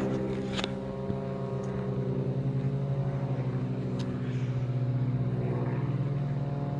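An engine running steadily with a fast pulsing beat, a little louder toward the end, with a couple of sharp clicks, one about half a second in and one at about 4 seconds.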